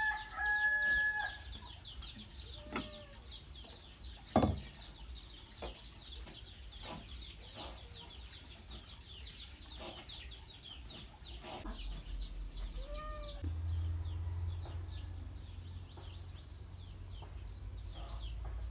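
Chickens clucking now and then over a constant fast, high chirping. There is one sharp knock about four and a half seconds in, and a low hum comes in during the second half.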